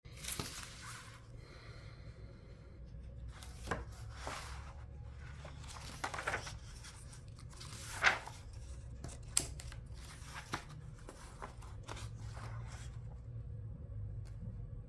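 Pages of a paperback picture book being turned and handled: paper rustling and flapping in a series of short bursts, with a few sharper paper snaps, over a steady low hum.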